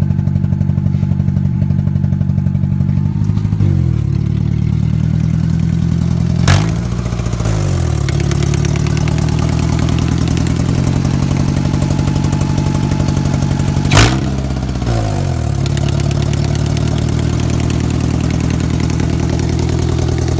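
Honda engine idling roughly with a constant knock or tick running under it, which the owner takes for a damaged valve rather than rod knock. Twice, about seven seconds apart, a sharp loud crack is heard and the engine speed sags and then recovers.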